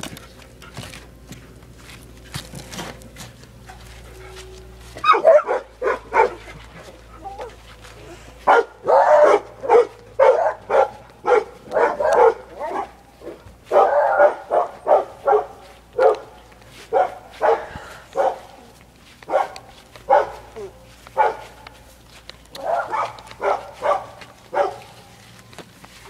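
A dog barking over and over in bouts, starting about five seconds in and going on until near the end.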